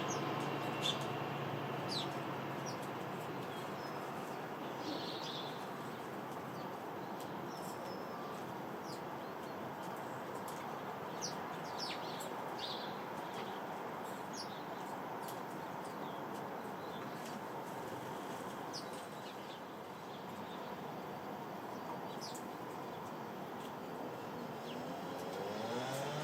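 Sparrows chirping: short high chirps scattered irregularly throughout, over a steady background rush of noise.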